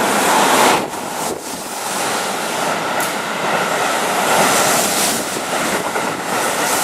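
Keihan 3000-series electric train running in past the platform close by: a steady rush of wheel-on-rail and running noise as the cars go by.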